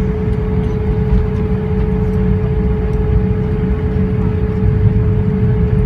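Steady cabin noise inside a jet airliner in flight: a loud, even low rumble from the engines and airflow, with a constant droning tone above it.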